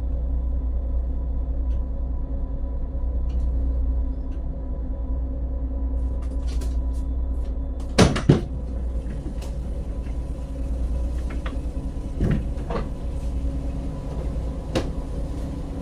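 Boat engine running with a steady low rumble and a constant hum. Sharp knocks cut through it: two close together about halfway, the loudest, then a few more singly later on.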